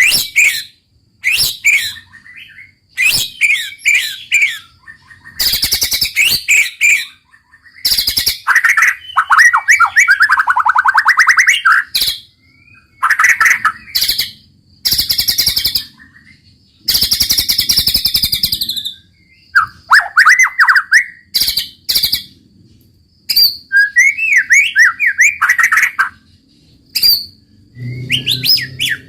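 White-rumped shama singing in loud bursts of varied phrases with short pauses between. Clear whistled glides alternate with harsh, rapid rattling runs.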